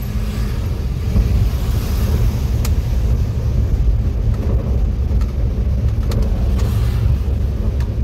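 Engine and tyre noise of a small truck heard from inside its cab while driving: a steady low rumble.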